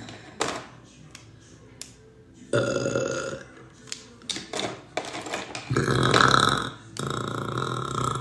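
A woman forcing up a burp that was stuck, in three long, deep burps about two and a half, five and three-quarter, and seven seconds in, the middle one the loudest, with short sharp sounds between them.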